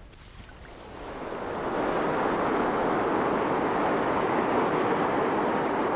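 Rushing water pouring over a river weir: a steady noise that fades in about a second in and holds.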